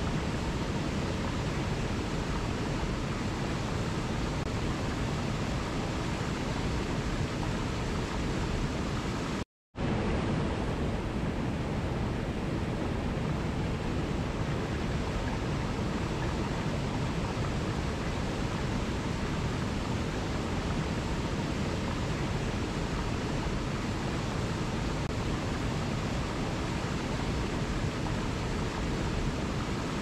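Waterfall: a steady, even rush of falling water that drops out to complete silence for a split second about ten seconds in.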